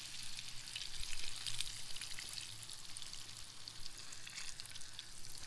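Hot frying oil in a pan sizzling steadily, with many small, fast crackling pops.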